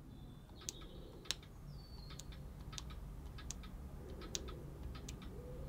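BMW N43 exhaust camshaft VANOS solenoid, out of the engine and fed 12 volts through test leads with the polarity swapped, clicking faintly each time it is energised and released: a dozen or so irregular clicks, showing the solenoid is working.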